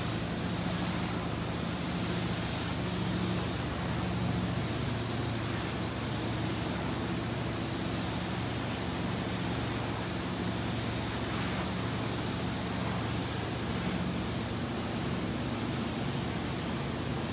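Carpet-cleaning extraction wands working the carpet: a steady rushing hiss of suction and spray through the wands and hoses over a steady low hum, the hiss swelling slightly every couple of seconds.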